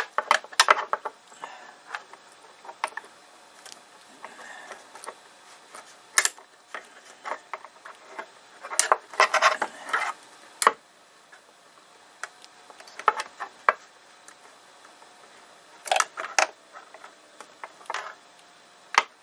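Light metal clicks and clatters from an SSD mounting bracket and small parts being handled inside an opened iMac, coming irregularly, with a busier stretch about nine seconds in and another near sixteen seconds.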